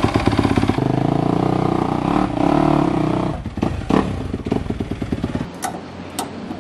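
Yamaha dirt bike engine running with its revs rising and falling as the bike is ridden up an aluminium ramp into a pickup bed, with a couple of clanks about three and a half seconds in. Near the end the engine stops and there are a few sharp clicks, as of a ratchet tie-down strap being tightened.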